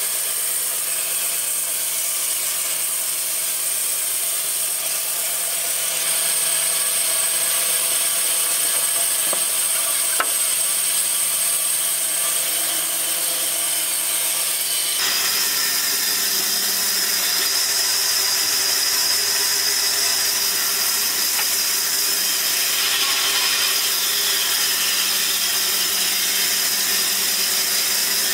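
Large sawmill band saw running, its blade ripping lengthwise through a log: a steady mechanical whine with a bright high hiss. The tone changes abruptly about halfway through.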